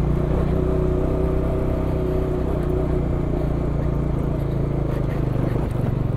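Bajaj Dominar 400's single-cylinder engine running steadily at low speed, its pitch dropping about five and a half seconds in as the bike slows.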